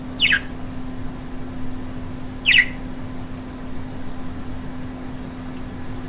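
Budgerigar giving two short chirps about two seconds apart, each falling quickly in pitch, over a steady low hum.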